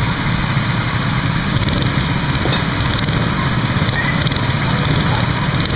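Small gasoline engines of several go-karts idling together, a steady mower-like drone with no change in pitch or level, the karts stopped in line and waiting to go.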